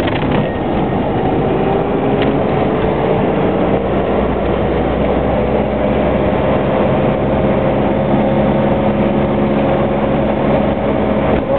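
Car engine and road noise heard from inside the car, a steady rumble with the engine note rising slowly as the car picks up speed.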